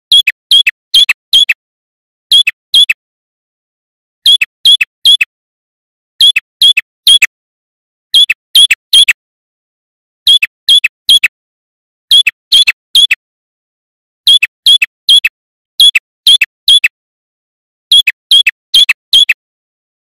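Male red-headed prenjak (a rufous-headed tailorbird) calling in short phrases of two to four loud, sharp notes, each note falling in pitch. The phrases repeat about once a second with brief silences between.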